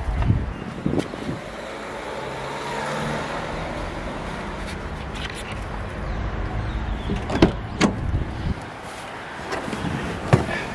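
A car engine running steadily, with a few sharp knocks in the second half.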